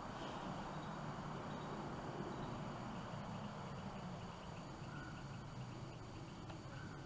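Quiet outdoor background: a faint, steady noise haze with a low hum, and no gunshot.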